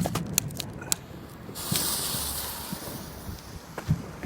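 Fireworks: a few sharp pops, then a hissing spray of sound for about a second and a half, and a single low thump near the end.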